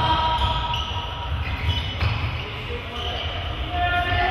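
Sneakers squeaking in short high chirps and footfalls thudding on a sports-hall floor as players run, echoing in the large hall.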